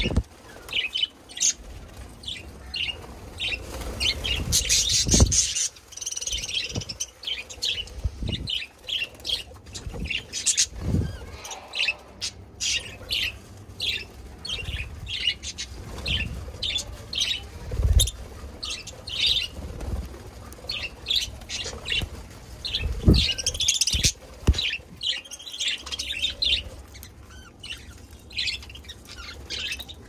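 Budgerigars chirping: a steady run of short, high chirps and tweets, with scattered low thumps and wing flutters from birds on the feeding hand.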